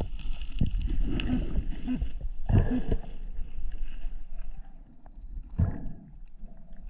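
Muffled water noise with a low rumble and scattered knocks and clicks, as from a camera moving through a shallow stream; louder in the first half, then quieter.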